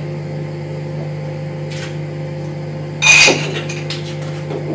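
A metal spoon scraping and clinking against a glass jar of coffee, loudest in one brief clatter about three seconds in, over a steady low electrical hum.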